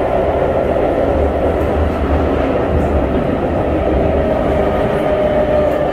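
Interior running noise of an SMRT C151 metro train car in motion: a steady rumble of wheels on rail with a faint steady whine.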